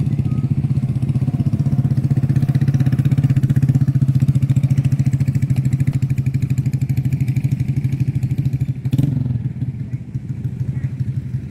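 An engine running steadily at an even idle, with a fast regular pulsing. About nine seconds in there is a single sharp click, after which the engine sounds a little quieter.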